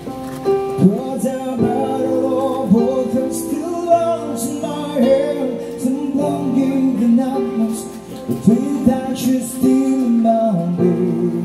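Male singer singing a slow rock ballad live with a small band: sustained keyboard chords, electric guitar and a drum kit with cymbal strokes. The voice comes in about a second in.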